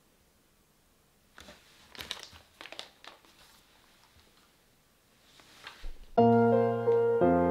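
A stand-up coffee bean bag crinkling in short bursts as it is handled and slid across a wooden table. Near the end, piano music starts suddenly and becomes the loudest sound.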